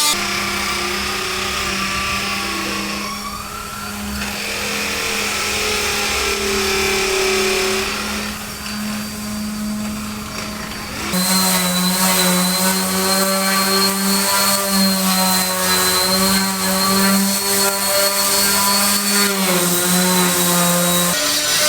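An electric motor running steadily with a constant hum, like a power tool at work. The sound changes abruptly about halfway through, and its pitch drops slightly near the end.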